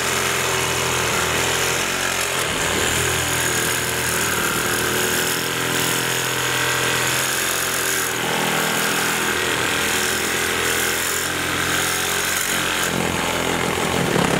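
Handheld power tool running steadily while cutting at the base of a wood wall: a constant motor drone with a rough cutting noise over it.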